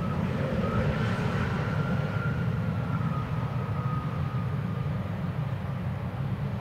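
Jet airliner arriving: a steady low rumble of its engines with a faint high whine that sinks slightly in pitch, slowly fading.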